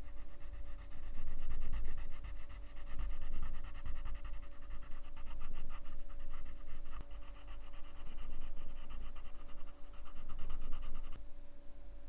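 Colored pencil shading on paper with quick back-and-forth strokes: a rapid, rhythmic scratchy rasp that stops near the end.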